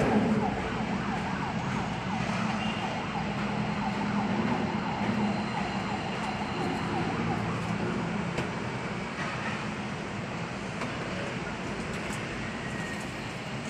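Emergency-vehicle siren sweeping rapidly up and down over a steady hum of traffic.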